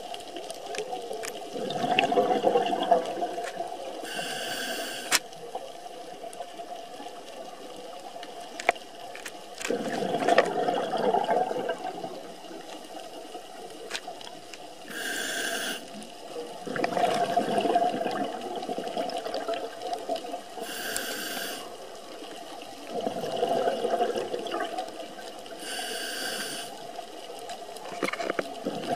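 Scuba diver breathing through a regulator, about four breaths: each a short hiss as air is drawn through the demand valve, then a longer gurgling burst of exhaled bubbles, a few seconds apart. A few faint clicks come in between.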